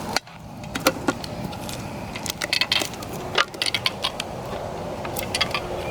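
Scattered clicks and small metallic clinks from handling cut-open spray paint cans, with two short clusters of clinking about two and a half and three and a half seconds in.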